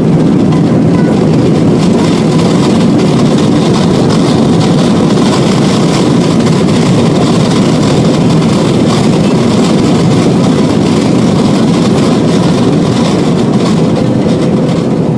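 Jet airliner heard from inside the cabin during the landing rollout: a loud, steady rush and rumble of engines and airflow as the plane slows on the runway, easing slightly near the end.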